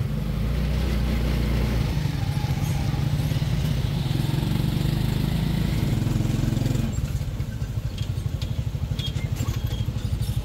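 Small motorcycle engine of a three-wheeled mototaxi running steadily while riding. About seven seconds in it slows and drops to a pulsing idle.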